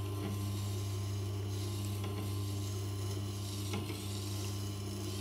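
Skew chisel bevel being ground on a Tormek water-cooled grindstone: a steady wet hiss of steel on the stone over the low hum of the machine's motor.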